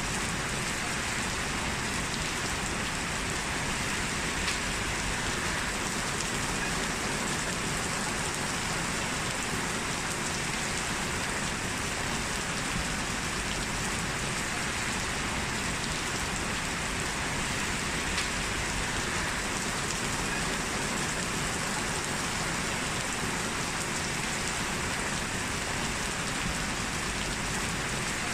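Steady rain falling, an even hiss with the patter of drops on a surface.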